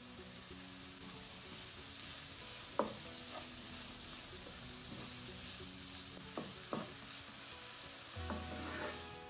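Diced onion, carrot and enoki mushrooms sizzling in oil in a frying pan while a wooden spatula stirs them, with a few sharp knocks of the spatula against the pan around three seconds in and again near six and a half seconds.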